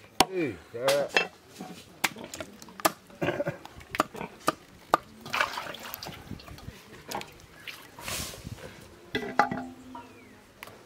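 A large knife cutting and handling wet goat intestines on banana leaves: scattered sharp clicks of the blade with wet squelching, slippery sounds.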